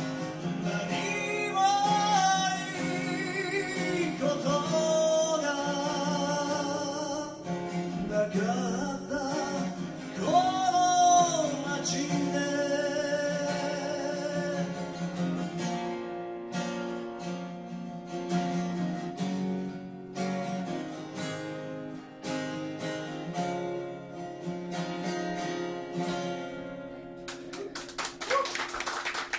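A man singing a slow ballad to his own strummed steel-string acoustic guitar. The voice stops about twelve seconds in and the guitar plays on alone to close the song, then clapping breaks out near the end.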